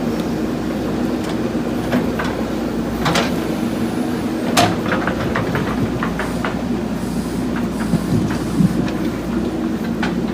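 JCB backhoe loader's diesel engine running steadily while it digs, with scattered sharp metallic knocks and clanks from the working gear, the loudest about four and a half seconds in.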